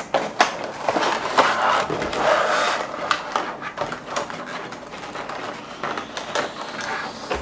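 Cardboard box and clear plastic packaging shell of a die-cast toy model being handled and opened: rustling with many sharp clicks and knocks, busiest about one to three seconds in.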